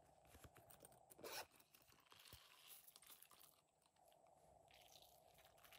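Faint unzipping of a silicone pop-it coin purse, with a short rasp of the zipper about a second in, among faint handling rustles and clicks.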